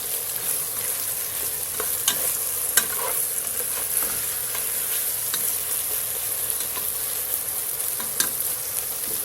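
Sliced chicken and long green onion sizzling in a frying pan as they are stirred, a utensil scraping and clicking against the pan a few times, the sharpest click about three seconds in.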